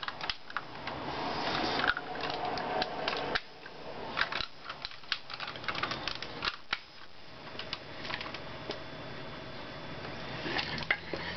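Irregular plastic clicks and knocks from handling a Thinkway Toy Story Buzz Lightyear action figure as its hinged plastic wings are folded down against its back.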